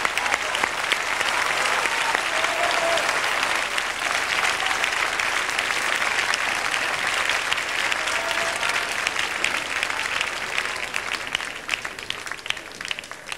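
Studio audience applauding steadily, thinning out near the end.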